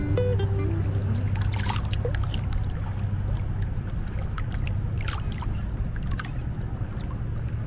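A boat's engine running with a steady low hum, over water rushing and washing past the hull, with a few brief splashes.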